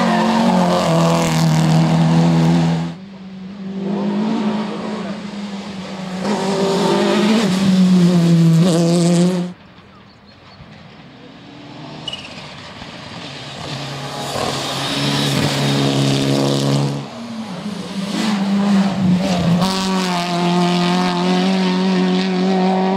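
Rally cars passing one after another at full throttle, engines revving up and down through gear changes. The sound cuts off abruptly between passes about 3, 9.5 and 17 seconds in.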